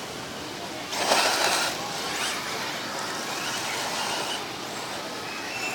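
Electric 4WD RC buggy with slipper clutch and spur gear drivetrain whirring as it accelerates and drives across grass, with a short loud rush about a second in.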